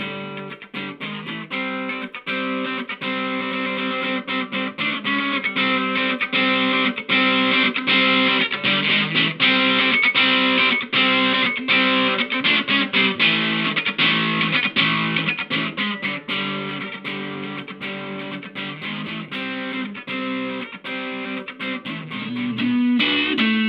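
Electric guitar played through a Katanasound effect pedal, picking a steady rhythmic riff of repeated notes and chords with an effected, driven tone.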